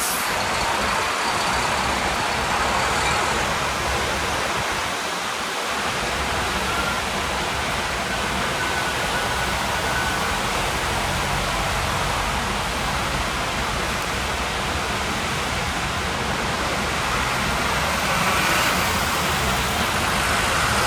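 Steady rush of surf breaking in a bay stirred up after a typhoon, with an irregular low rumble underneath.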